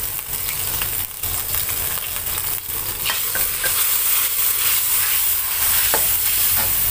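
Oyster-sauce gravy sizzling in a steel wok as a metal spatula stirs and scrapes through it: a steady hiss with a few light scrapes and ticks.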